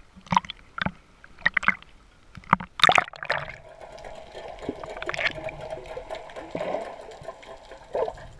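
Seawater splashing and sloshing against a GoPro held at the surface, then a loud splash as the camera goes under about three seconds in. After that, a steady, muffled hum of the sea heard underwater through the camera housing.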